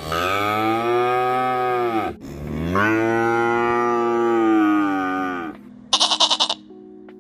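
Cow mooing twice in two long calls, the second longer, each dropping in pitch at its end. A short quavering bleat follows about six seconds in.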